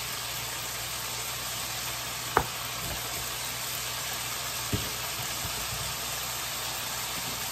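Bite-size chicken breast pieces frying in olive oil in a skillet: a steady sizzle. Two sharp clicks stand out, about two and a half seconds in and again near five seconds.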